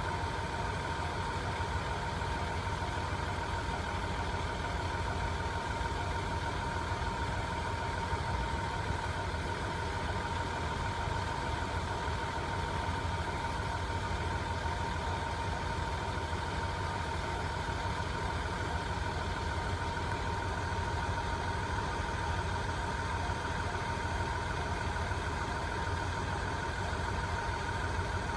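Nanao Line 415 series electric train humming steadily, with a steady high-pitched whine over a low drone.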